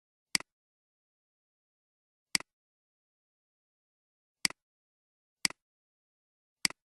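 Computer mouse clicks, five single clicks at irregular intervals, each a sharp press followed at once by a softer release, with dead silence between.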